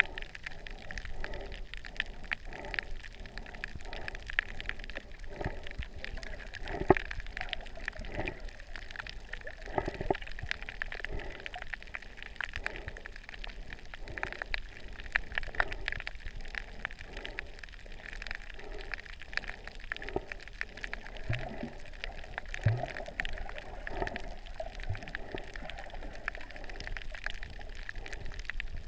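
Underwater sound from a camera in a waterproof housing while snorkelling over a reef: a steady muffled hiss with many short crackling clicks and soft, irregular sloshing pulses.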